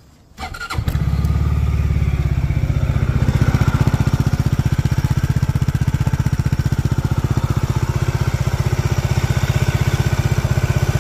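Daelim Q3 scooter's single-cylinder four-stroke engine cranked on the electric starter and catching almost at once, then idling steadily with an even, rapid beat. It starts readily at about 37,000 km.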